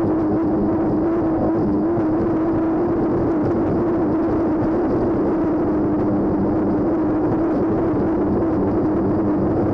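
F-25 racing hydroplane's engine running steadily at racing speed, heard from inside the cockpit as a loud, even drone, with the rush of the hull over the water.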